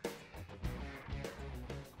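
Background music with a steady beat, struck about twice a second.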